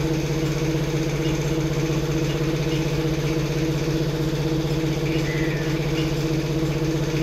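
An engine running steadily at idle: an even, unchanging drone.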